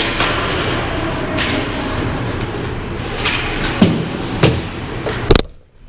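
Ice hockey play on the rink: steady noise of skates on the ice, broken by several sharp knocks of sticks and puck. The loudest knock comes near the end, and then the sound drops away suddenly for a moment.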